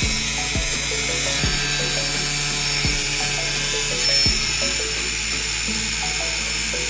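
Angle grinder running with a steady high-pitched grinding hiss, over background music with a low beat about every one and a half seconds.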